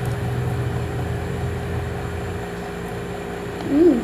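Low steady engine-like hum that fades out about two and a half seconds in, over a faint steady tone. Near the end, a short hummed "mmm" from the woman eating, rising then falling in pitch.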